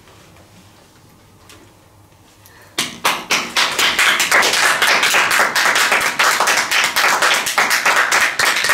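Applause from a group of people clapping, starting suddenly about three seconds in after a quiet stretch and keeping up at full strength.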